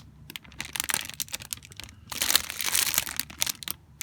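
Plastic packaging crinkling and rustling as it is handled, with scattered light clicks. The crinkling is densest for about a second, a little past two seconds in.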